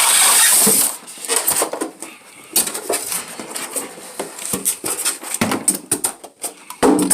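Unboxed portable air-conditioner parts and packaging being handled: a loud rustle lasting about a second, then scattered light clicks and knocks.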